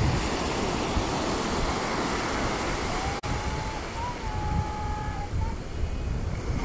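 Small ocean waves breaking and washing on a sandy beach, with wind buffeting the microphone in a fluctuating low rumble. A faint thin tone drifts in about halfway through.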